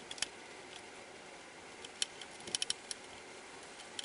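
Sharp metallic clicks and ticks of small fasteners being started and turned in by hand tool during inverter reassembly: a couple near the start and a quick cluster of about five between two and three seconds in.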